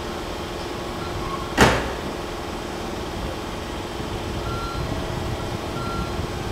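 Steady low rumble of a distant JR Freight DD51 diesel-hydraulic locomotive approaching, with a faint steady hum. One sharp knock about a second and a half in is the loudest sound.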